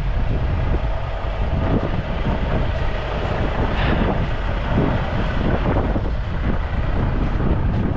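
Wind rumbling on the microphone, mixed with highway traffic going by in the snow; a passing vehicle swells brighter about four seconds in.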